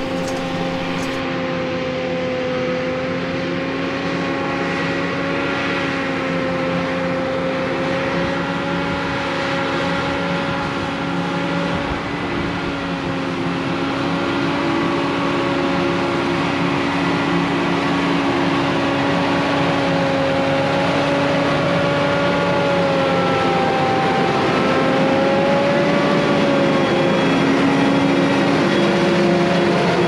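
Farm machinery running steadily: a continuous droning hum whose pitch wavers slightly, over a constant rush of noise.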